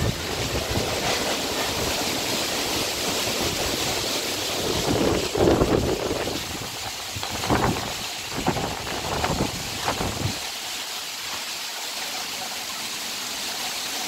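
Storm wind blowing through coconut palm fronds and trees with a steady rushing hiss, while gusts buffet the microphone in heavy low thumps. The buffeting stops about ten seconds in, leaving only the rush of the leaves.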